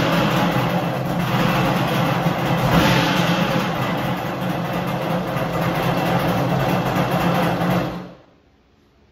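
Kawasaki JS440 jet ski's 440 two-stroke twin engine running, then dying away about eight seconds in.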